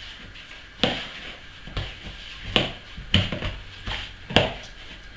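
Soft yeasted dough being kneaded by hand in a plastic bowl: a series of dull slaps and knocks, about six in five seconds, as the dough is pressed and folded against the bowl.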